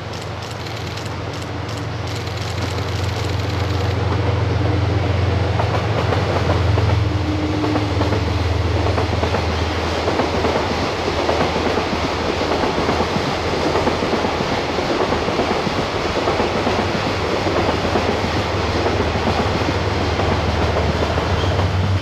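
Diesel-hauled container freight train passing: the locomotive's low engine drone grows louder over the first few seconds as it approaches, then the long string of container wagons rolls by with a steady rumble of wheels on the rails.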